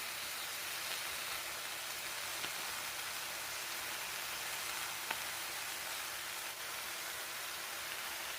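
Vegetables and minced pork sizzling in a hot pan during a stir-fry: a steady hiss with a few faint crackles.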